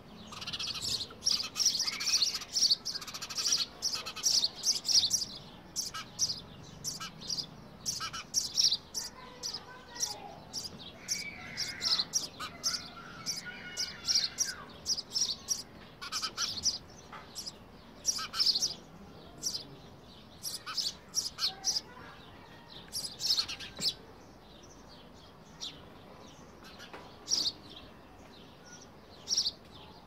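Sparrows chirping at a nest box: many short, sharp chirps in quick succession, busiest in the first half and thinning out near the end.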